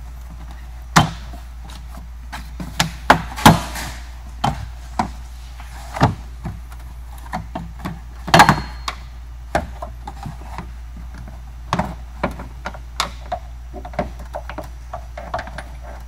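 Plastic trim clips popping and the Tesla Model S frunk's windshield-side trim panel knocking as it is unclipped and pulled free by hand. The clicks and knocks come at irregular intervals, loudest about a second in, around three and a half seconds in, and about eight seconds in.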